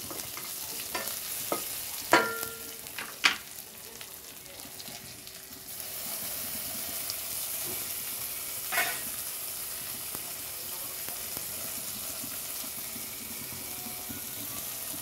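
Oil sizzling in a pan with a tempering of mustard seeds, cumin, pepper, green chilli and curry leaves, stirred with a spoon that knocks against the pan a few times, the loudest strokes about two and three seconds in with a short metallic ring after the first. The sizzle grows a little louder about six seconds in.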